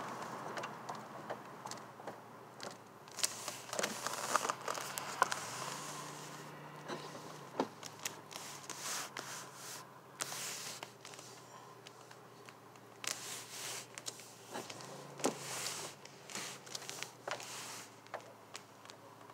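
Inside a slowly moving car, scattered clicks, crackles and rustles of things rubbing and knocking, over a faint low engine hum that swells briefly twice.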